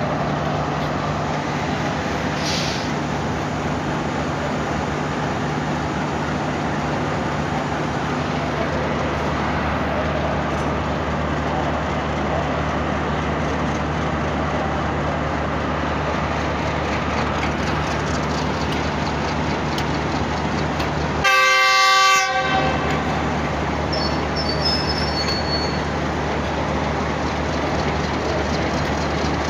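Diesel shunting locomotives running with a steady low engine drone. About three quarters of the way through, a locomotive horn gives one loud blast of about a second.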